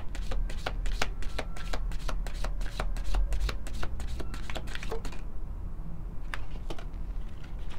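A deck of round tea-leaf oracle cards being shuffled by hand: a rapid run of light card flicks and slaps that thins out to a few scattered flicks about five seconds in.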